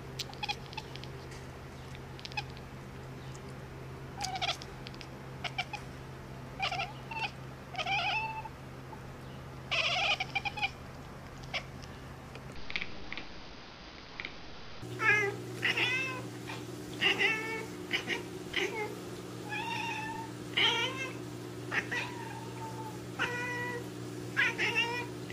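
Domestic cat mewing repeatedly in short, high calls that bend up and down in pitch, over a steady low hum.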